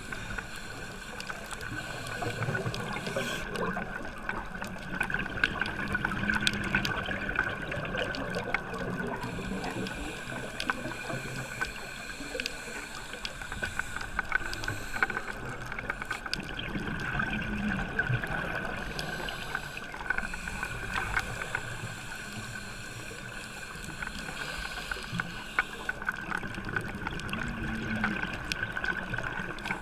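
Underwater sound picked up by a diver's camera in its housing: a scuba diver's exhaled bubbles gurgle in low swells about every ten seconds, over a steady thin tone and a scattered crackle of clicks.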